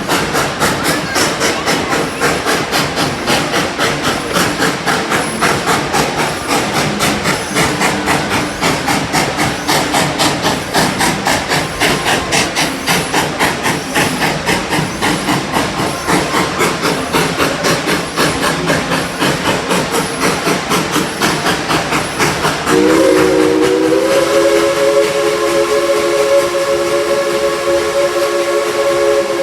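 Tweetsie Railroad No. 190, a 2-8-2 Mikado steam locomotive, running with steady, even exhaust chuffs about three a second. About three-quarters of the way in, its steam whistle opens with a brief rise in pitch and holds as a long chord of several tones.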